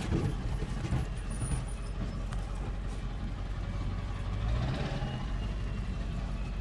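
Pickup truck driving slowly on a rough dirt road in four-wheel drive, heard from inside the cab: a steady low rumble of engine and road noise with faint rattles.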